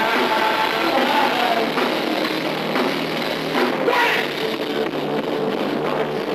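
A heavy metal band playing live, electric guitar to the fore, loud and dense without a break.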